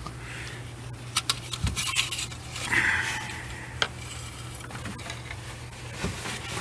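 Scattered light clicks and taps with a brief rub, from hand-handling under the hood while the engine oil level is being checked with the engine off.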